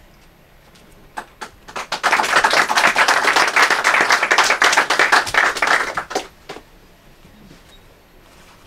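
Small audience applauding for about four seconds, starting about two seconds in, with a few scattered single claps just before and after.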